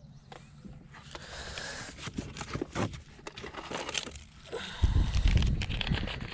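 Rustling and crinkling of plastic snack packaging as a Reese's peanut butter cup in its orange wrapper is pulled from a bag, with many small clicks and knocks of handling and a heavy low thump about five seconds in.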